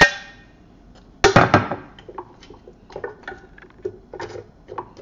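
Kitchen tongs clicking and tapping against an air fryer basket as chunks of marinated pork ribs are pushed into place: a louder clatter a little over a second in, then a run of light clicks and knocks, several a second.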